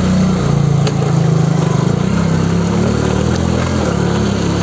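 Motorcycle engine running while riding, picked up by a phone on the rider's helmet, its pitch stepping up and down a few times over steady road and wind noise.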